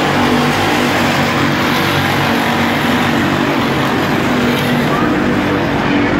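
A pack of dirt-track stock car engines running hard as the cars lap the oval, a loud steady drone.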